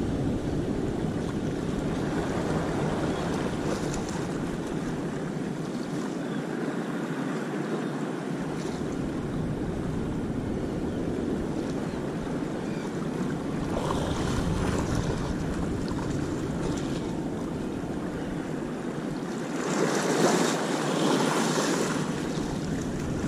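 Sea waves washing onto the beach, with wind buffeting the microphone; the surf swells louder twice, around the middle and again near the end.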